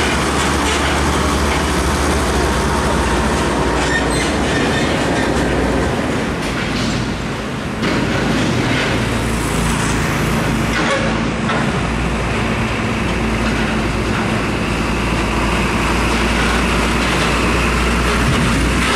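Heavy diesel trucks passing close by: a container semi-trailer rig going past, then a Hino tractor unit with a loaded flatbed trailer approaching and driving by, engines running under steady loud traffic noise. The noise dips briefly about seven seconds in and then picks up again.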